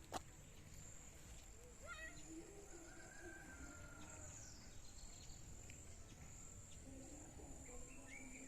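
Faint outdoor nature ambience: a steady, high-pitched insect drone, with a few faint bird calls over it and a single click just after the start.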